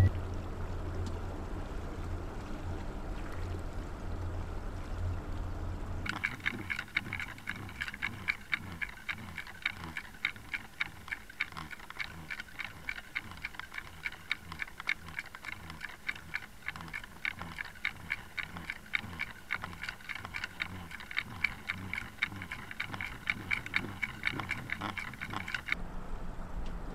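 For about six seconds, the low steady hum of the boat's outboard motor at trolling speed. Then the sound changes to underwater audio: a regular ticking, a few clicks a second, over a steady high whine.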